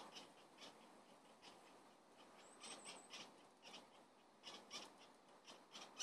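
Faint, irregular soft tearing and ticking as a sparrowhawk plucks feathers from its prey, a great spotted woodpecker, a few pulls a second. A brief high chirp sounds about two and a half seconds in.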